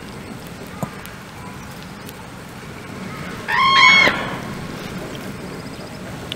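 A common crane gives a single loud trumpeting call, about half a second long, some three and a half seconds in. There is a short click just before one second.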